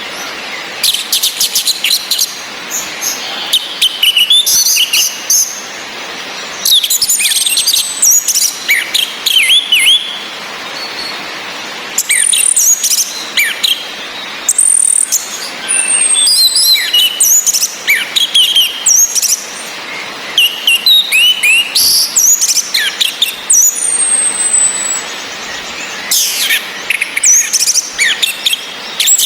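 Orange-headed thrushes calling and singing: a busy run of sharp chirps and varied whistled phrases, some gliding down in pitch, with short gaps between bursts. A steady hiss of rain runs underneath.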